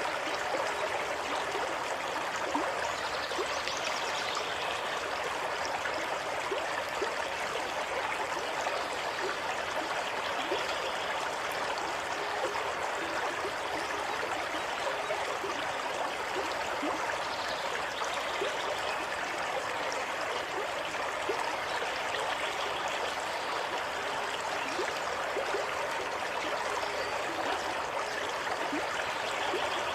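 A stream of water running and gurgling steadily.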